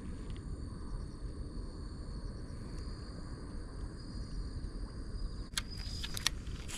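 Outdoor ambience: a steady low rumble with a faint, steady high insect trill. About five and a half seconds in come a few sharp clicks as a baitcasting reel is handled.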